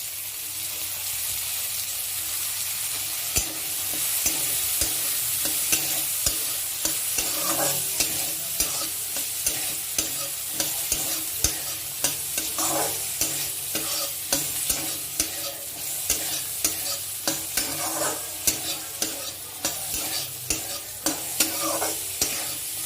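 Chopped vegetables sizzling in butter in a kadai while being stir-fried, with a spatula knocking and scraping against the pan in frequent sharp clicks from about three seconds in.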